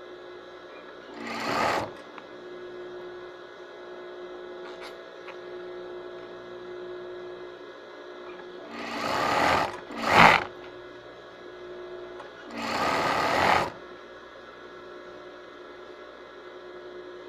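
Electric sewing machine stitching in short runs: four bursts of about a second or less, each building up and then stopping abruptly, over a steady faint hum.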